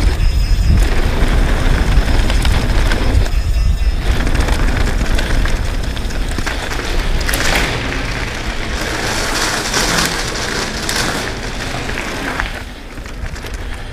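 Wind buffeting a GoPro's microphone over the rolling and crunching of knobby mountain-bike tyres on a dirt and gravel trail at speed, with the bike rattling. The tyre and gravel noise surges in bursts around the middle of the run.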